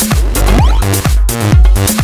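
Electronic dance music with a heavy, regular kick-drum beat and repeated falling synth glides.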